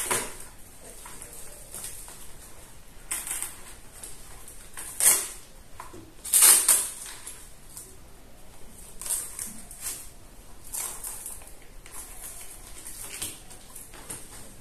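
Handling noise of a GoPro helmet strap mount being fitted and tightened on a motorcycle helmet: a series of short scrapes and rustles of strap and plastic against the helmet, the loudest about five and six and a half seconds in.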